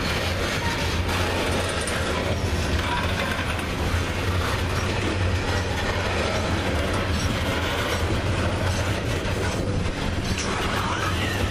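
Loaded coal hopper cars of a freight train rolling past at low speed: a steady rumble of steel wheels on the rails with occasional clicks over rail joints, and a faint wheel squeal about ten seconds in.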